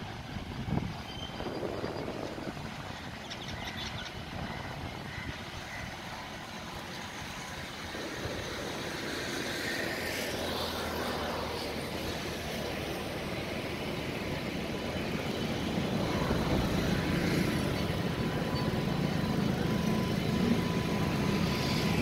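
WAG9 three-phase electric freight locomotive drawing slowly closer as it departs with a rake of empty wagons. Its running noise and a low hum grow steadily louder.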